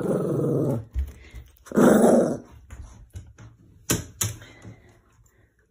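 A Shih Tzu vocalizing twice, each a drawn-out, throaty bark of under a second, the second about two seconds in. A couple of sharp clicks follow about four seconds in.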